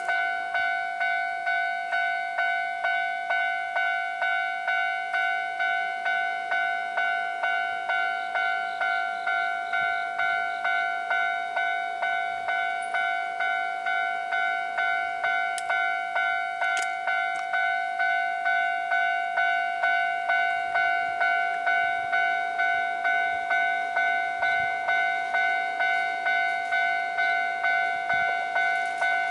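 Railway level-crossing alarm ringing: an electronic bell tone pulsing evenly about twice a second, warning of an approaching train.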